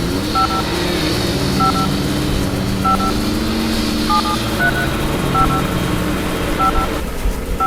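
Touch-tone telephone keypad beeps, one short two-tone dialing beep roughly every second, eight in all, over a steady low drone.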